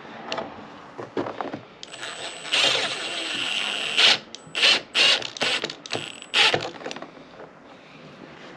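Red Milwaukee cordless driver driving screws into a boat helm dash mount: one run of about two seconds with a high motor whine, then about six short trigger bursts as the fastener is snugged down.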